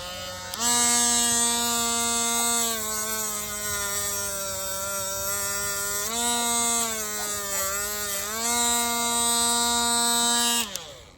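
Dremel rotary tool whining at high speed against a rooster's cut spur, its pitch sagging twice as it is pressed on, then switched off. The friction is being used to cauterize the spur where the quick (the blood vessel in the spur) was nicked.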